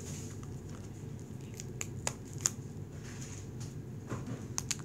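Shopkins toy packaging being opened: scattered sharp clicks and crackles of plastic, several in quick succession near the end.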